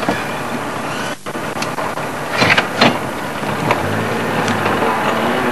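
Safari vehicle on the move: a steady rush of vehicle and wind noise with a few sharp knocks and rattles, and a steady engine hum coming in about four seconds in.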